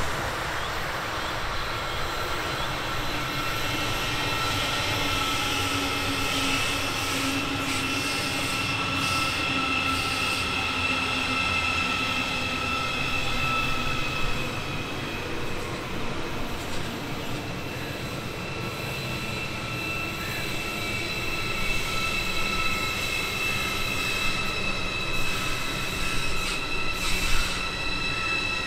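A train rolling past with a steady high-pitched squeal made of several tones over the running rumble, easing off about two-thirds of the way in and coming back. There are a few sharp clicks around the middle and near the end.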